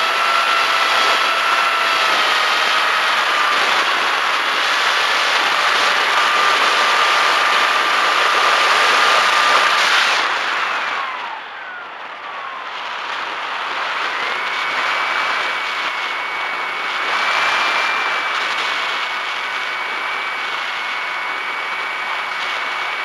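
Brushless electric motor and pusher propeller of a Bixler 1.1 foam RC plane, heard from its onboard action camera: a steady whine over loud wind rush. About ten seconds in the whine falls in pitch and the sound drops as the motor slows, then a higher steady whine returns a few seconds later and starts rising again near the end.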